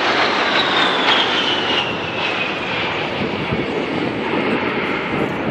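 A-10 Thunderbolt II's twin TF34 turbofans running in a fly-by, a steady jet rush under a high whine that slides down in pitch over the first three seconds as the jet banks away.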